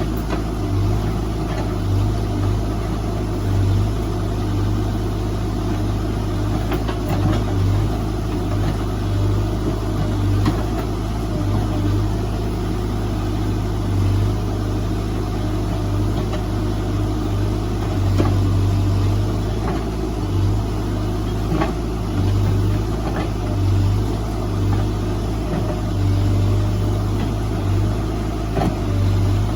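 Diesel engine of a piece of heavy earthmoving equipment running steadily with a low hum that swells slightly now and then, with a few faint clicks.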